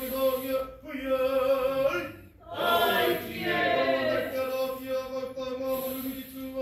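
Group of Māori performers singing in unison with long held notes, a short break about two and a half seconds in, then the voices slide downward before settling back onto held notes.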